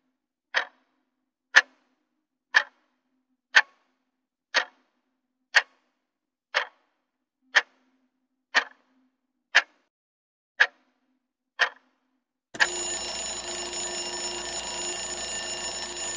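Clock-ticking sound effect, one sharp tick a second, marking a countdown timer. About twelve seconds in, the ticking gives way to a continuous alarm-clock ring signalling that time is up.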